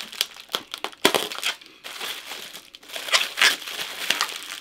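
Packaging crinkling and rustling in irregular bursts, with sharp crackles, as it is handled and pulled away from a hardcover book being unwrapped.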